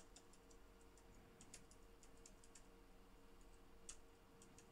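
Faint, scattered clicks from a computer keyboard and mouse, over a steady low hum.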